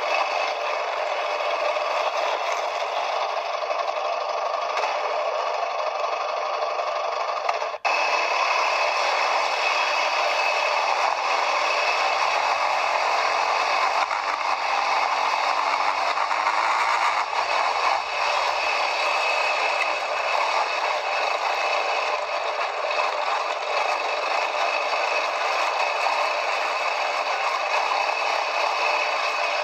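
Quad bike on the move, heard from an onboard camera: steady rattling and clattering mechanical noise with little low end, with a brief dropout about eight seconds in.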